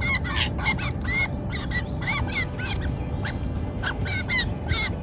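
Drongos calling in a quick, busy run of short, harsh notes mixed with bending whistles, several calls a second, with no break.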